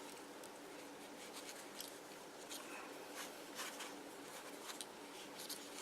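Cotton wool being pulled apart and handled by hand: soft, scratchy rustles coming in short, irregular strokes from about a second in.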